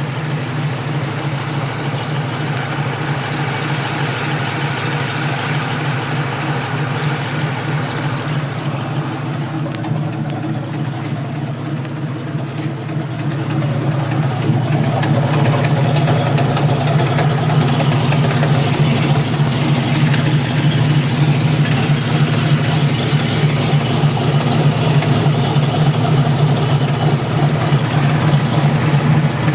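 Car engine idling steadily with an exhaust leak; the sound gets louder about 14 seconds in and stays that way.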